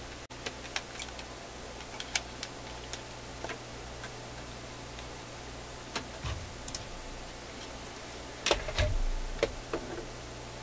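Scattered small clicks and taps of handling at an electronics workbench, with a louder cluster of clicks and knocks about eight and a half seconds in, over a steady low hum.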